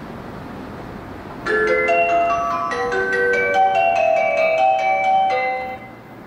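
Platform PA chime: a short melody of clear marimba-like notes, starting about a second and a half in, over steady background noise. It is the tune that precedes a spoken train-approach announcement.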